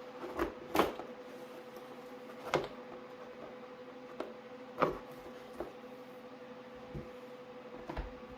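A handful of short scrapes and knocks as a cardboard keyboard box is cut open with a metal PCI bracket used as a box opener, over a faint steady hum.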